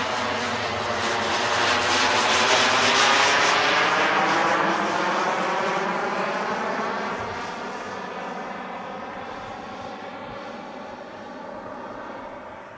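Frank V-Raptor model jet turbine of a 1:3-scale Messerschmitt P1110 model jet flying past overhead: a whine over a rushing hiss that is loudest a couple of seconds in, drops in pitch as the jet passes, then fades as it moves away.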